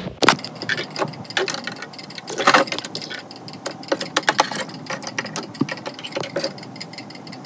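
Irregular clicks and light taps of plastic toys being handled and moved about on a hard shelf, with a few sharper knocks.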